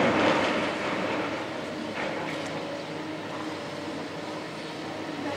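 Tracked excavators' diesel engines running steadily. A loud noisy rush at the very start fades out within about half a second.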